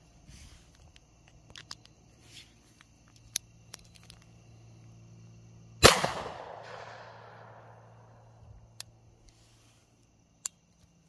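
A single shot from a homemade sheet-metal double-barrel .410 derringer about six seconds in, a sharp crack that rings out and fades over about two seconds. A few short, sharp clicks from handling the gun come before and after the shot.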